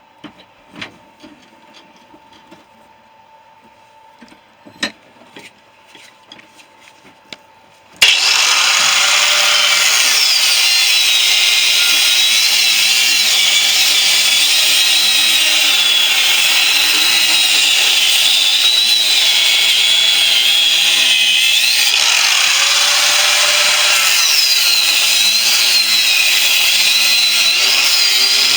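A few light clicks and knocks of handling, then about eight seconds in an angle grinder starts and cuts into the steel shell of a refrigerator compressor. It is a loud, steady grinding whine whose pitch sags and recovers as the disc is pressed into the metal.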